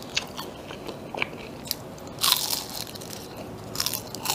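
Close-up crunchy bites and chewing of a crisp roujiamo flatbread bun, in separate sharp crunches, with a louder crunch a little past halfway and another cluster near the end.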